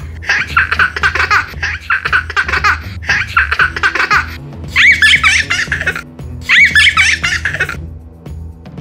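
Young child's laughter in repeated bursts, with the loudest bursts about five and about six and a half seconds in, over background music with a steady beat. The laughing stops about eight seconds in.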